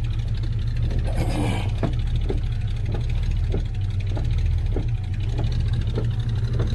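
1967 Ford Galaxie engine idling steadily, freshly started, with a light click repeating about every two-thirds of a second and a brief rustle about a second in.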